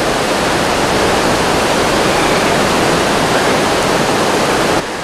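Whitewater river rapids rushing over rocks: a loud, steady rush of water that drops off suddenly just before the end.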